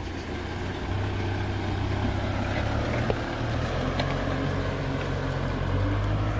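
Kubota M6040 tractor's diesel engine running steadily under load as it pulls a disc plough through dry soil.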